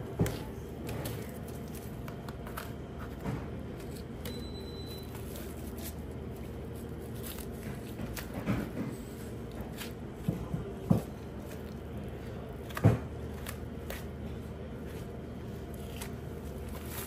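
Raw beef muscles being pulled apart by gloved hands along their seams, soft tearing and handling noise with a few sharp knocks, the loudest about thirteen seconds in, over a steady low hum.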